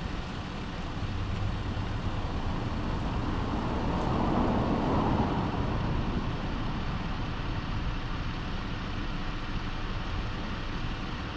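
Steady motor-vehicle noise that swells for a moment about four seconds in and fades again.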